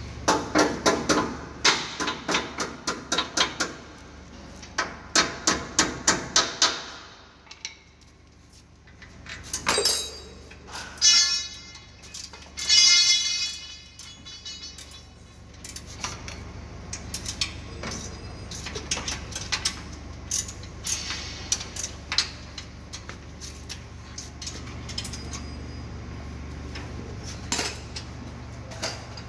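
Hand tools on the metal frame of a ring spinning machine: fast runs of sharp metallic tapping and clinking for the first several seconds, then a few louder ringing metal scrapes, then scattered lighter clinks, over a steady low hum.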